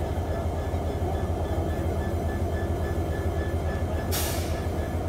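A standing railway locomotive running, a steady low, pulsing rumble with a faint steady whine. About four seconds in comes a short hiss of compressed air lasting about half a second.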